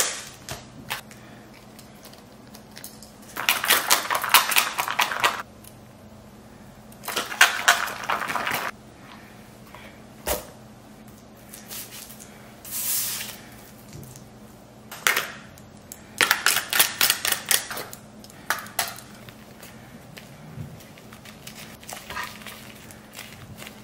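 Natto being stirred in its plastic tray and rice spread with a spoon: bursts of quick clicking, scraping utensil strokes, each a second or two long, with a single sharp click about ten seconds in.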